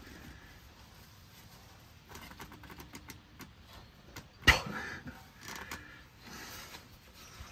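Scattered clicks and rustling of a gloved hand gripping and twisting a spin-on oil filter, with one sharp knock about four and a half seconds in.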